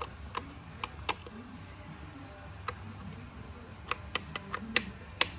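Irregular sharp metallic clicks and ticks, a few in the first second and a quick run of them near the end, from a Harley stock compensator spring pack being handled. Its springs are worn loose, the cause of the clatter on hot starts.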